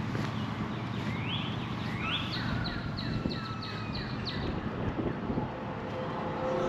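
A songbird singing: a few rising slurred notes, then a quick run of about six short notes. Underneath is steady wind noise on the microphone.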